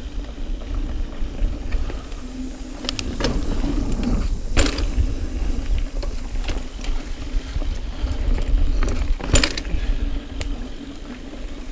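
Niner EMD 9 hardtail mountain bike ridden fast over dirt singletrack: wind buffeting the camera microphone, tyre rumble, and the bike rattling over the rough trail, with several sharp knocks as it hits bumps.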